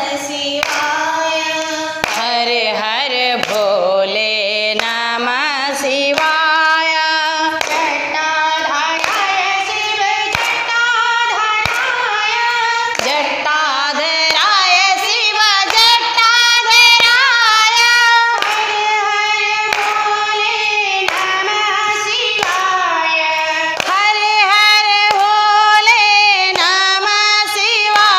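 Women singing a Hindu devotional song in unison, with long held notes, keeping time with steady hand-clapping.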